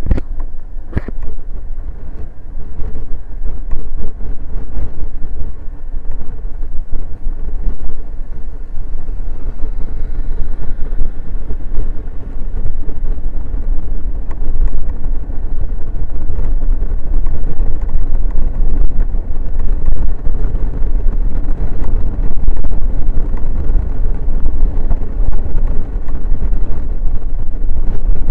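Wind buffeting the microphone of a camera on a Honda Forza 125 scooter at road speed, with the scooter's single-cylinder engine running steadily underneath. A single sharp click about a second in.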